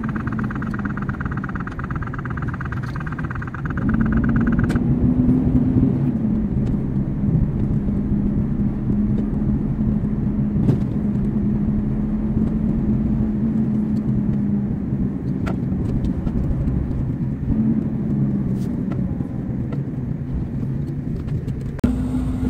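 Heavy truck's diesel engine and road noise heard from inside the cab while driving: a steady low drone whose pitch rises and falls a few times as the engine pulls. A thin high whine sits over it for the first few seconds and stops about five seconds in.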